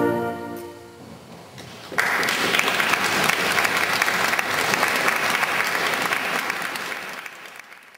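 A wind band's final held chord dies away, ringing on briefly in the church. About two seconds in, the audience breaks into applause, which fades out near the end.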